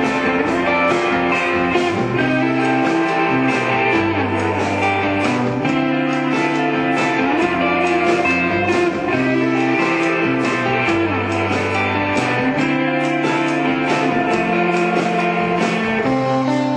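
Indie rock band playing live, led by electric guitars over bass, with a steady beat.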